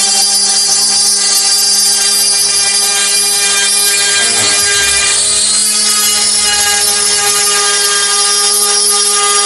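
SmartCNC SCR5040 CNC router spindle running steadily while its small end mill cuts a curved groove into an acrylic sheet: a constant whine with a hiss of cutting.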